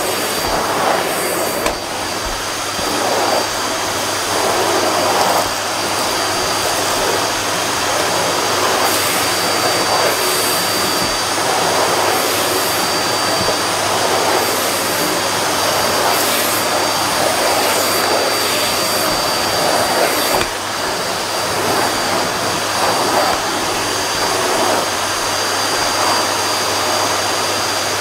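Miele bagged canister vacuum cleaner running on carpet: a steady motor whine with a high tone. Its suction noise swells and eases about once a second as the floor head is pushed back and forth.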